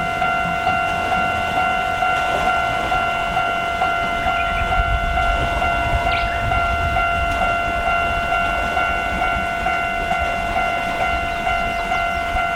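Japanese railway level-crossing warning bell ringing a steady, evenly repeating ding. A low rumble rises under it about four seconds in and fades again near the end.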